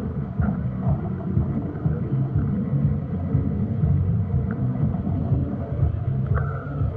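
Low, uneven rumble of wind buffeting the microphone over the background of a crowded pedestrian street, with a brief higher tone about six seconds in.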